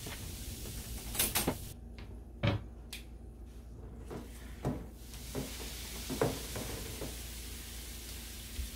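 Stainless steel mesh grill rack clinking and knocking against a stainless steel mixing bowl as it is turned over with tongs in baking-soda water to lift off grease: several short metallic knocks spread through, over a steady hiss.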